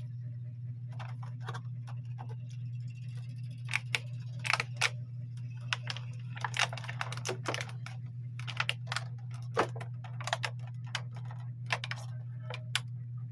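Irregular light clicks and taps, about twenty of them, scattered unevenly over a steady low hum.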